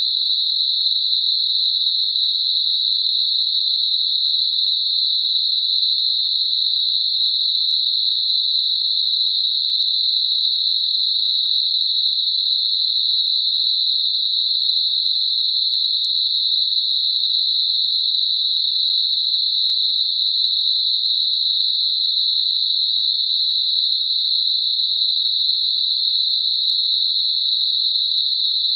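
Synthetic 4 kHz Gaussian narrow-band noise, a tinnitus masker: a steady, high, even hiss squeezed into a narrow band, with no low end and no change in level.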